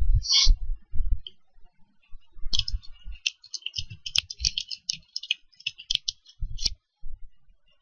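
Typing on a computer keyboard: a quick run of keystrokes starts about two and a half seconds in, pauses briefly, then carries on and stops shortly before the end.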